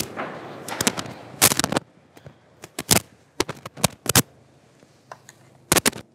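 Irregular sharp knocks and clicks, about a dozen, from people sitting down and moving about in a reverberant hall.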